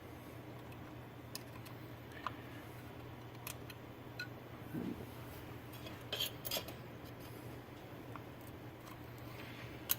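Light metallic clicks and clinks from small hardware being handled while a replacement on/off switch is fitted into a floor edger's switch housing, a few scattered taps with the loudest pair about six seconds in, over a faint steady hum.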